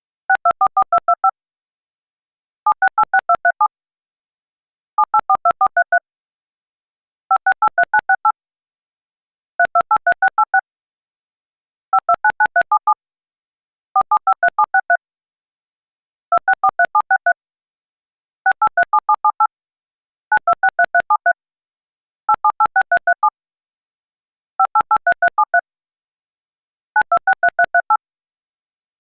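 Synthesized DTMF touch-tone dialing: rapid strings of about seven short two-tone beeps, each string a seven-digit phone number, repeating roughly every two seconds with brief silences between.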